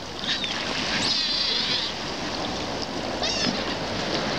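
Gulls calling over a steady rush of wind and lapping sea water: a longer call about a second in and a shorter one about three seconds in.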